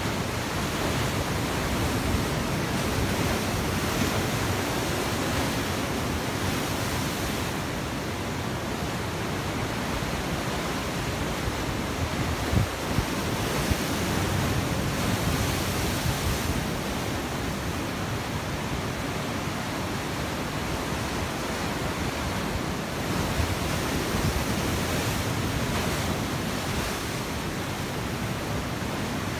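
Sea surf breaking and washing over coastal rocks: a continuous rushing roar that swells and eases over several seconds at a time. A couple of brief knocks come about halfway through.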